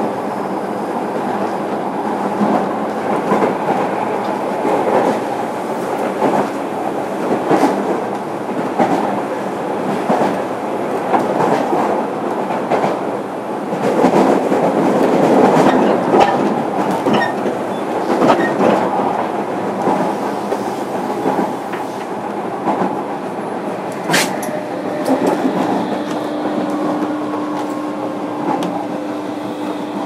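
Running noise heard inside a JR Kyushu 305 series electric multiple unit, motor car MoHa 305-106: a steady rumble with wheels clicking over rail joints. A sharp knock comes about 24 seconds in, and a steady tone from the drive sets in shortly after.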